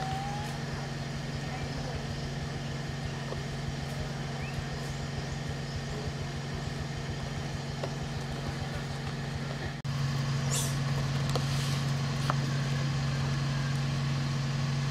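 A steady low motor hum, like a nearby engine running, that gets louder at a cut about ten seconds in, with a few faint short high sounds soon after.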